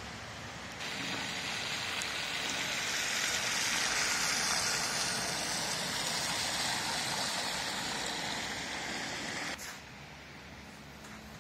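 Car tyres hissing through slush on a wet, snowy road as a vehicle passes, swelling and then fading; the hiss cuts off suddenly near the end.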